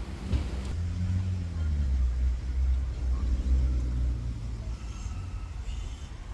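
A motor vehicle passing close by, its low engine rumble swelling and then fading over about four seconds.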